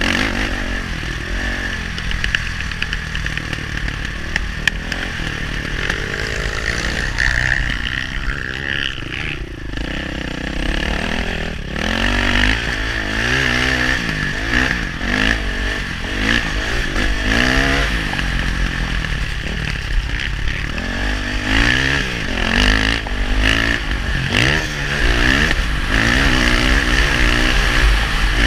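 KTM four-stroke single-cylinder dirt bike engine under hard riding, its pitch rising and falling over and over as the throttle opens and closes, with wind buffeting on the microphone.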